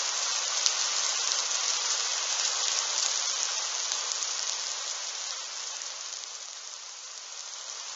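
Steady rain falling, an even hiss that eases a little in the last few seconds.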